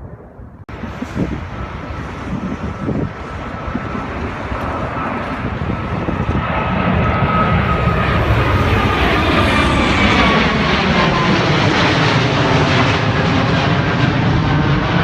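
An airplane passing low overhead, its engine noise growing steadily louder and then holding, with a whine that slides slightly down in pitch as it comes close.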